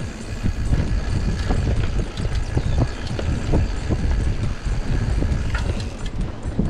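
Mountain bike rolling fast down a dirt trail: tyres rumbling on the packed dirt and the bike rattling and knocking over bumps and roots.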